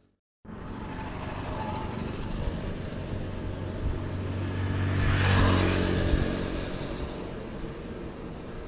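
Road traffic heard from a moving bicycle: a steady rumble of traffic, with a motor vehicle passing close by about five seconds in, rising and then fading. The sound starts after a brief moment of silence.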